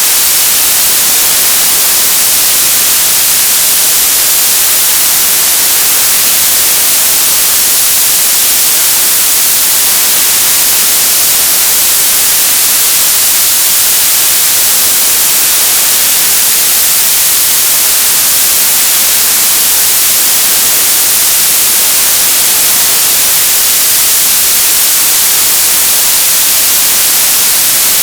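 Television static: a steady, loud hiss of white noise, strongest in the high end, with no change throughout.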